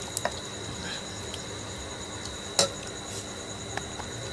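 A few sharp mouth clicks and smacks as a person chews food, the loudest about two and a half seconds in, over a steady faint high-pitched whine.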